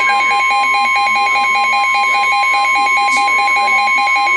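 NOAA Weather Radio warning alarm tone: a steady, loud, continuous high tone (the 1050 Hz warning alert tone), sounding together with rapid pulsing electronic alert beeps at about six a second. It signals that an emergency warning broadcast is about to follow.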